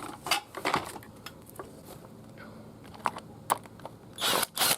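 Scattered small clicks and knocks of a whipper snipper's plastic trigger-housing parts being handled and fitted together by hand, with a short rustling noise near the end.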